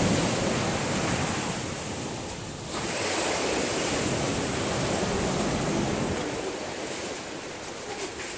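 Small waves breaking and washing up a sandy beach: a steady hiss of surf, with a brief lull about two and a half seconds in, that grows quieter over the last couple of seconds.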